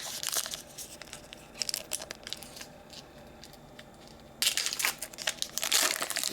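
A trading card pack's wrapper crinkling and tearing as it is opened by hand, with scattered crackles and a louder, denser stretch of crinkling in the last couple of seconds.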